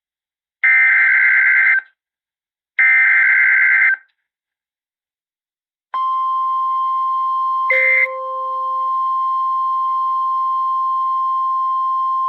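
Emergency Alert System SAME header data bursts: two bursts about a second long, about a second apart. After a two-second pause the steady single warning alarm tone of NOAA Weather Radio starts, with a short burst of noise and a lower beep about two seconds into it, signalling that a new severe thunderstorm warning follows.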